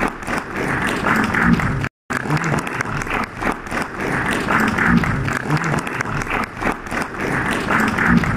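Audience applauding, broken by a brief dropout about two seconds in.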